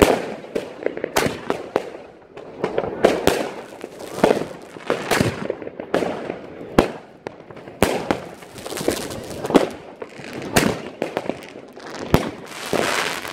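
New Year's Eve fireworks and firecrackers going off: an irregular string of sharp bangs, some loud and others fainter, with crackling between them and a denser rushing crackle near the end.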